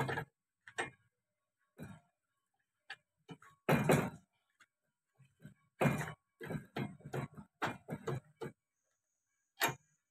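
Hand ratchet wrench clicking in short, irregular bursts as a nut is worked on the tractor's steering linkage, with a few metallic knocks of the tool against the part.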